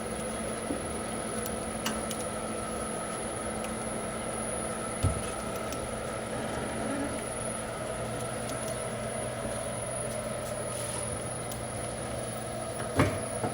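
Bluedog BWS-50-MF bench-top wire stripping machine running slowly on its variable-frequency-drive motor, a steady hum as it strips the outer coating off a thick multi-strand copper cable. A few light clicks and knocks, the sharpest about five seconds in and near the end.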